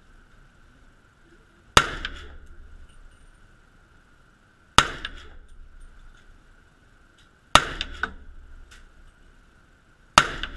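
Four single shots from a .300 AAC Blackout AR-15 rifle, spaced about two and a half to three seconds apart. Each is a sharp, loud crack with a reverberating tail off the walls of the indoor range.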